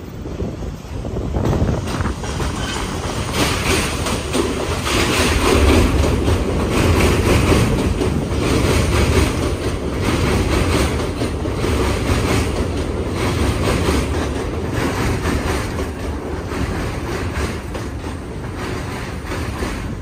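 R62A 1 subway train passing close on an elevated steel line, its wheels clattering over the rail joints. The sound builds over the first couple of seconds and slowly eases off toward the end.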